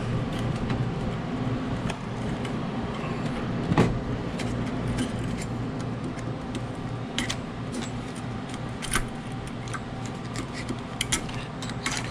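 Scattered small metallic clicks and scrapes of a screwdriver prying at the old spring seal on an ice machine's stainless auger shaft, with one louder knock about four seconds in. A steady low hum runs underneath.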